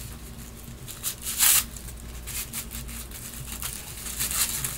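Wrapping being torn open and crinkled by hand, with a short loud rip about one and a half seconds in and more rustling near the end.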